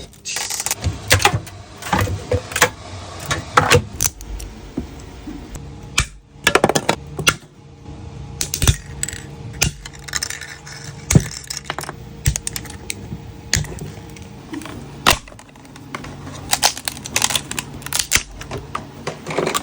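Hard PLA plastic of a large 3D print being handled and worked, with irregular sharp clicks, clatters and short crackling snaps.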